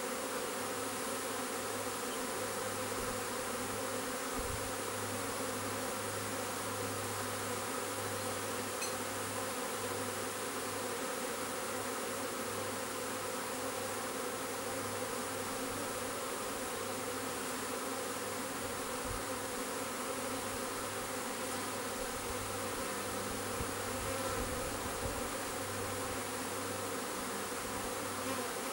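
Honeybee swarm buzzing steadily as it moves into a swarm trap: the dense, continuous hum of many bees flying and crawling at the entrance.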